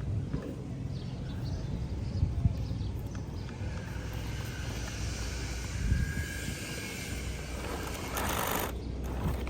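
Radio-controlled off-road car running over rough ground, with a steady low rumble and hiss. Near the end there is a brief, louder rush of noise.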